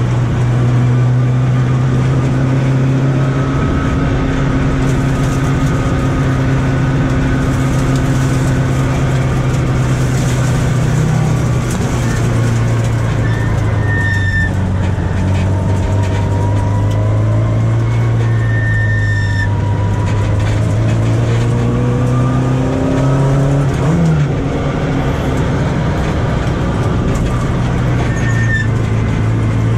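A Volkswagen Golf Mk1's four-cylinder engine running steadily, heard from inside the car, its pitch rising and falling a little in the middle and again near the end.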